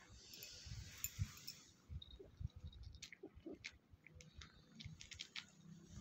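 Quiet rustling of fur and bedding with scattered soft clicks and low thumps as two cats shift against each other, with a brief hiss of rustling in the first second or so.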